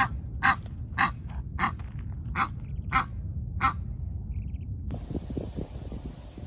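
A bird calling seven times, short harsh calls a little over half a second apart, over a low steady rumble. The calls stop a little before four seconds in, and about a second later the background turns to a steady hiss.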